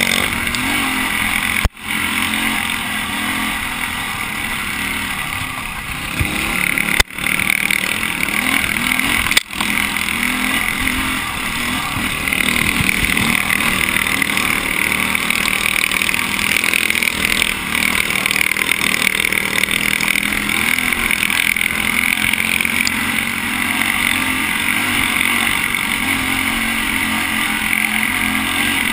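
Dirt bike engine running steadily as it rides up a rough dirt trail. The sound cuts out for an instant three times in the first ten seconds.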